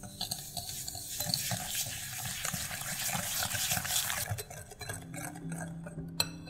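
Metal wire whisk beating egg yolks and granulated sugar in a glass bowl: rapid scraping of the wires against the glass for about four seconds, then lighter whisking, with a sharp clink near the end.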